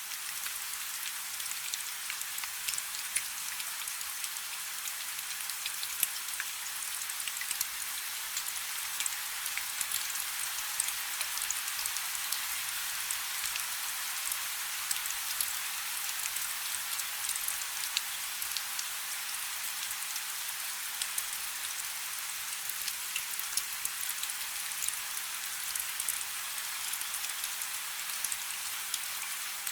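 Steady rain: an even hiss with many sharp ticks of individual drops hitting a surface.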